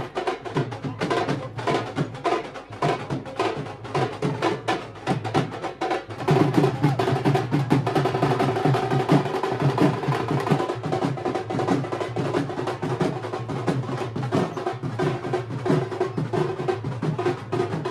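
Music with fast, dense drumming, growing fuller and louder about six seconds in.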